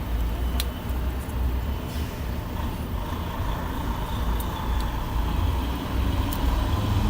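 Steady low rumble of a vehicle engine running, with a few sharp light clicks.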